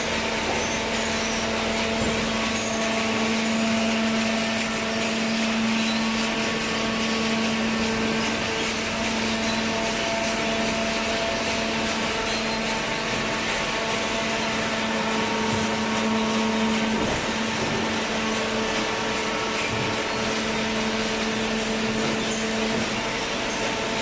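Horizontal hydraulic cardboard baler running: a steady mechanical hum over an even wash of machine noise.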